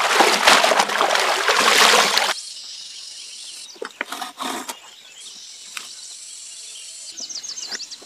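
Long green leaves swished and sloshed in a wooden tub of water for about two seconds, then a few short rasping strokes about four seconds in as a leaf is pulled through a small metal splitting blade. Faint chirping in the background.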